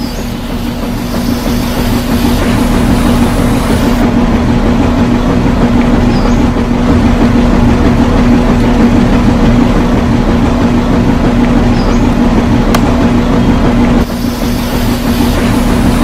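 A motor running steadily with a constant hum and rumble. The high hiss over it thins out about four seconds in and comes back near the end.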